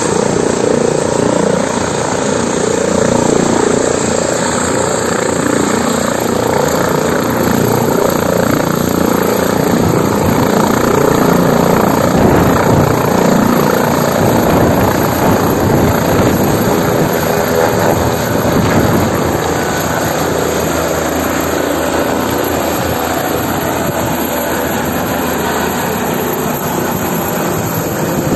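Leonardo AW169 twin-engine helicopter lifting off the pad and climbing away, its rotor beat and turbine noise loud and steady throughout.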